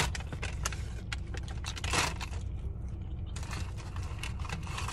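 Close-up eating noises: chewing a fast-food burger and fries, with crackly mouth clicks and bursts of crinkling from paper food packaging about two seconds in and near the end. A steady low hum runs underneath.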